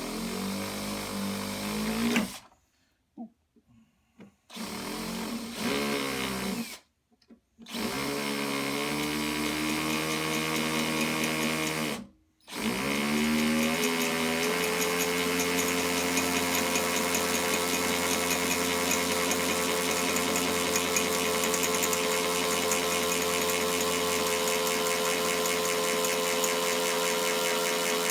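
Electric hand drill drilling pilot holes into a Jeep Wrangler's body: it runs in short bursts, cutting out three times in the first twelve seconds and winding up in pitch at each restart, then runs steadily for the rest.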